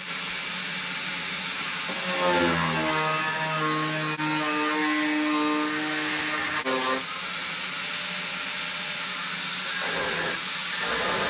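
Handheld power tool grinding old bonding material off a C3 Corvette's fiberglass body, its whine shifting in pitch as it bites, over the steady drone of a shop vacuum pulling away the dust.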